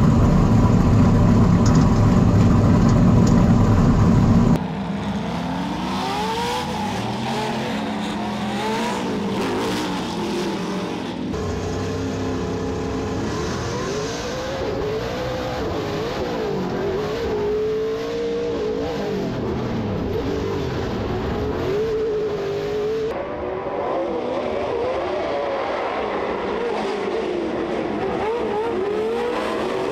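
Pro 4 off-road race truck engine running loud and low inside the cockpit. About four and a half seconds in, the sound cuts to racing engines revving up and down through gear changes.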